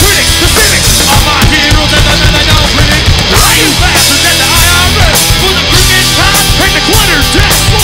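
Live rock band playing loud, hard-edged rock without singing.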